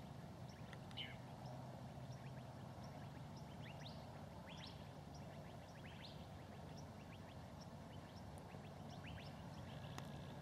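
Faint dusk ambience: small birds giving scattered, short, quick chirps over a steady low background noise.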